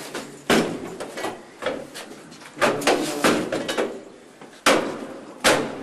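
About six heavy blows struck against a wooden door at uneven intervals: a forced entry, with police officers trying to break the door in.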